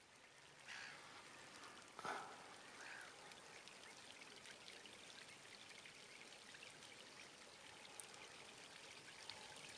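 Near silence: faint outdoor ambience, a low even hiss with a few soft, brief sounds in the first three seconds.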